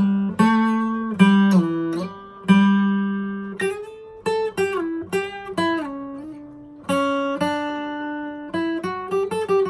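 Sigma by Martin DR2 rosewood dreadnought acoustic guitar played fingerstyle: picked chords and single notes, each ringing on and fading before the next, with a hall-like reverb on the higher notes.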